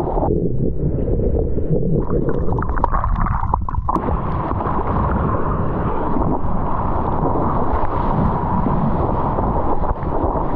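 Rushing water and wind rumbling loudly on a GoPro's microphone while surfing and paddling a wave. The sound turns muffled for a moment near the start, then crackles with splashes before it opens up again.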